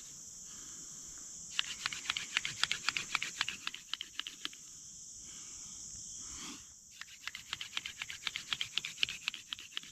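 Dog fennel spindle spun back and forth in a cedar fireboard's burned-in socket, making rapid scratchy ticks in runs of about three seconds. The runs are broken by short pauses, one about a second in and one near the middle, while the hands go back up the spindle. A steady high insect drone runs underneath.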